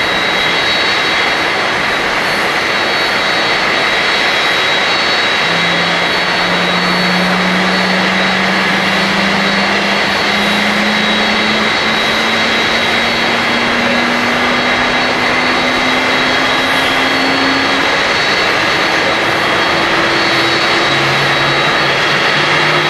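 Jet roar from a British Airways Boeing 777-200ER's Rolls-Royce Trent 895 turbofans at climb power just after takeoff: a steady, loud rushing noise with a high whine. From about five seconds in, a low hum slowly rises in pitch.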